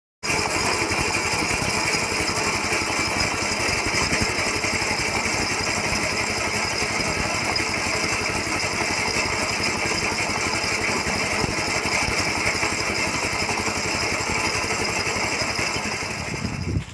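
Honda GX 6.5 hp single-cylinder four-stroke petrol engine running steadily, turning a V-belt drive that spins a wheel. The sound falls away near the end.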